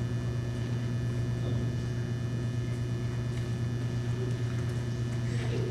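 Steady low electrical hum, with fainter steady tones above it; nothing else stands out.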